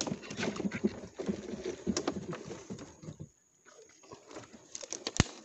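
Rustling and irregular knocks as gear and the rod are handled in a wooden boat, with a sharp knock near the end.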